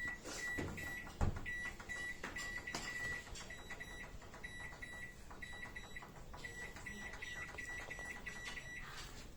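Microwave oven's control panel beeping over and over: short, high beeps of one pitch in quick runs of several a second, with brief pauses between runs. A few knocks sound in the first second or so.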